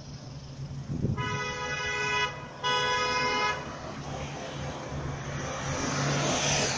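A vehicle horn sounding two steady blasts of about a second each, over traffic noise that swells toward the end as vehicles pass.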